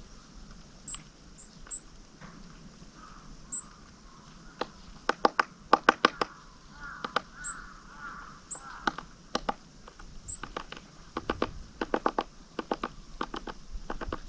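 Small wild birds pecking and hammering at seeds or wood in rapid runs of sharp taps, with thin high call notes scattered throughout. A crow caws faintly near the middle.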